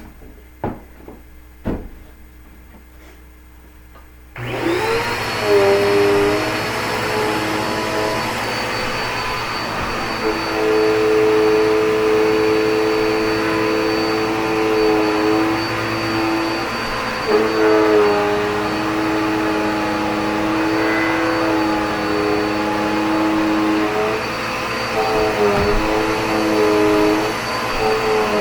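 A few sharp clicks, then a Dirt Devil Power Duo cyclonic upright vacuum cleaner switched on about four seconds in. Its motor runs loudly and steadily with a high whine, the pitch stepping up and down a few times.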